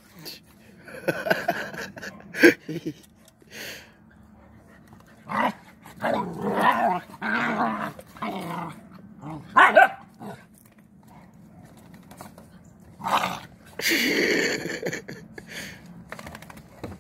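Several puppies play-fighting, growling and letting out short yips and barks in irregular bursts, with a few sharper yelps.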